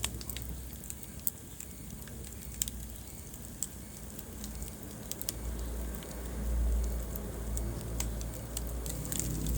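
Wood fire crackling in a fireplace: irregular sharp pops and snaps over a low steady rumble of the flames, the rumble swelling for a couple of seconds about halfway through.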